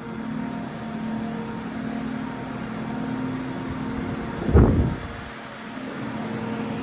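A steady low mechanical hum, with one heavy thump about four and a half seconds in.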